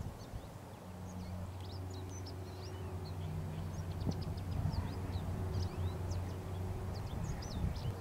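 Many small birds chirping, with short high calls tumbling over one another, over a steady low drone.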